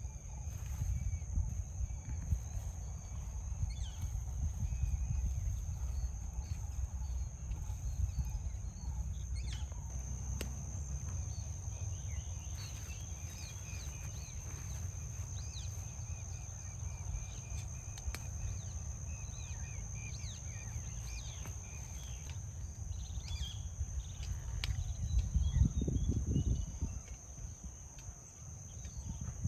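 Rural outdoor ambience: a steady, high-pitched insect drone and scattered bird chirps over a low rumble that swells briefly near the end.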